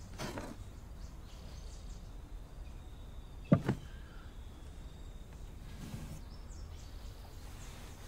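Quiet outdoor evening ambience over a steady low rumble. About three and a half seconds in comes a dull thump, followed closely by a softer second one.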